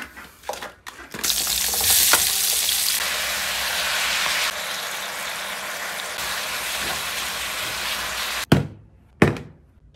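Sliced beef and onions sizzling in a hot stainless wok, a loud steady hiss of stir-frying. Two short knocks come near the end.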